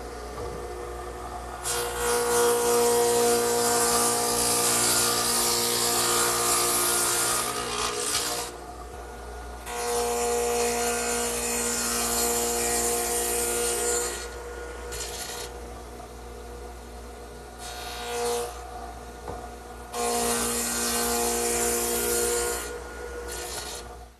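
Radial arm saw with a stacked dado head cutter, its motor humming steadily while it makes repeated passes through clamped wooden leg blanks, cutting rabbets and dados. Each pass is a loud cut over the hum: three long cuts and a couple of short ones.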